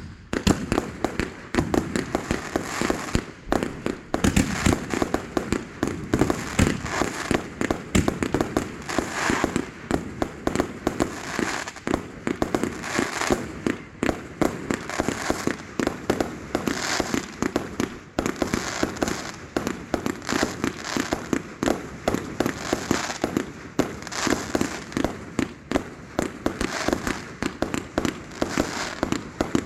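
Consumer aerial fireworks going off in a rapid, continuous barrage: sharp bangs and crackles several times a second with no pause.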